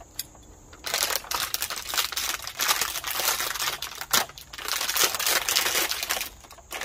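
Clear plastic packaging crinkling and rustling as a long plastic bug shield is pulled out of its wrapping, starting about a second in, with a short pause near the end.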